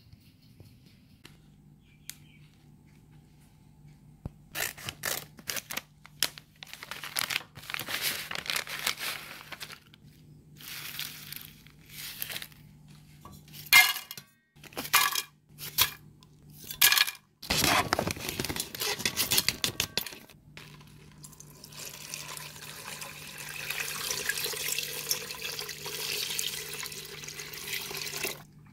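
Crinkly rustling and tearing of packaging, with several sharp clattering knocks as dried herb pieces go into a cooking pot. Over the last seven seconds or so, water pours steadily into the pot.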